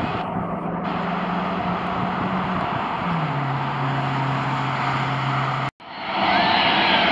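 Steady rumble of jet aircraft and passing road traffic, with a low engine tone that drops in pitch about three seconds in. Near the end the sound cuts out for a moment, then the louder jet noise of an Airbus A300-600 freighter on approach rises.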